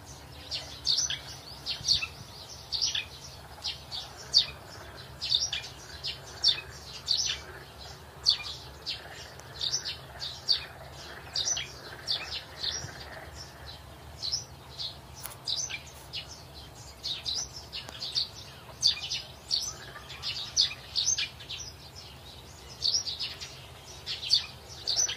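Small birds chirping: an irregular run of short, high chirps, about two a second, over a faint steady low hum.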